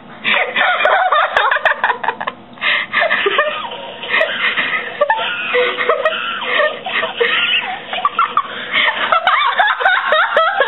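Two girls cracking up, laughing hard in long, nearly unbroken fits of giggling.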